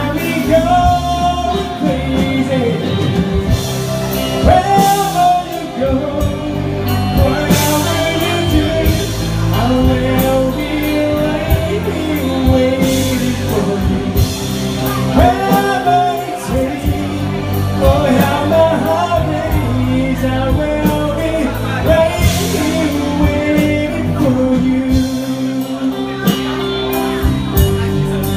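A singer performing a song live with a backing band: the melody is sung over a steady beat with drums and bass.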